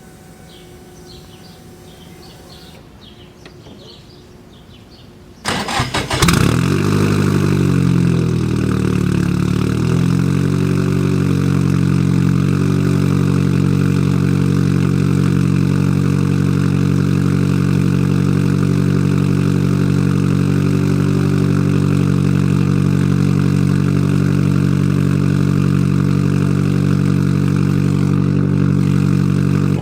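Car engine cranked and started about five seconds in, breathing through a new ISR Series II EP single-tip blast-pipe exhaust. The revs waver for a few seconds, then it settles into a steady, loud cold-start idle.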